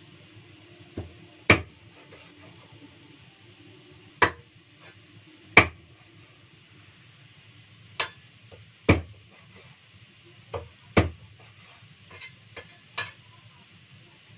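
A large kitchen knife chopping through frog meat, about a dozen sharp knocks at uneven intervals with short pauses between strokes.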